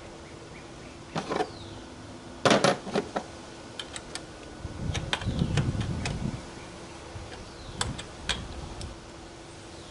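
A hand wrench clicking and clinking against a car battery's negative terminal clamp and bolt as the clamp is fitted and tightened down: a scatter of sharp metallic clicks, with a soft low rumble of handling in the middle.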